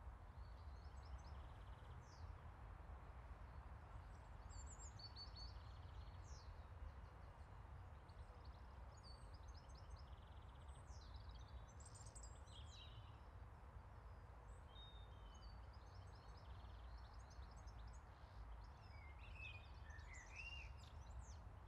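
Faint outdoor ambience: scattered small-bird chirps and calls over a low, steady rumble.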